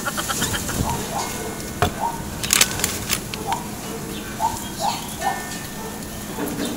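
A few sharp knocks of construction hammering nearby, the loudest about two and a half seconds in, with short bird chirps repeating in between.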